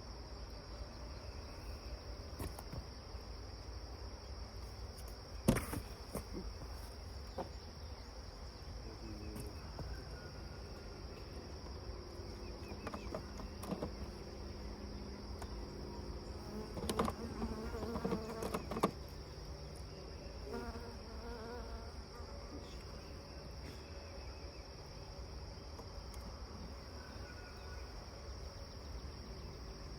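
Honeybees buzzing, swelling louder through the middle, over a steady high trill of crickets. A few sharp knocks of handling come through, the loudest about a fifth of the way in and a cluster in the middle.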